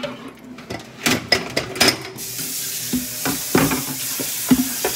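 Dishes and utensils clattering and clinking as they are handled on a kitchen counter. About two seconds in a steady hiss starts and carries on under further clinks.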